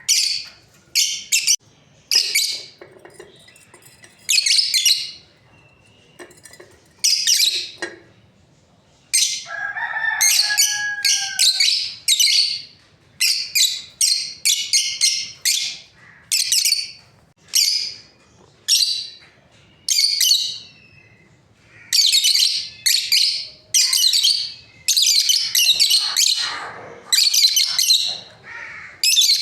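A pair of lovebirds chattering with rapid, shrill chirps that come in quick irregular runs with short pauses, and one lower, sliding call about ten seconds in.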